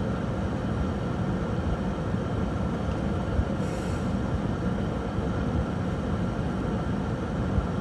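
Steady low rumbling background noise, even throughout, of the kind a passing train or road traffic makes.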